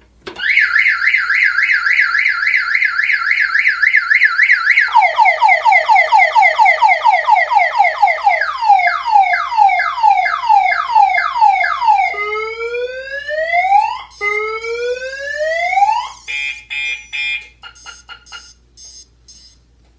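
Viper 5806V car-alarm siren going off, triggered by the tool box lid's tilt-switch sensor. It runs through its tones in turn: a fast warble, then rapid falling sweeps that slow down, then two long rising whoops. It ends with a burst of rapid beeps and a few short chirps.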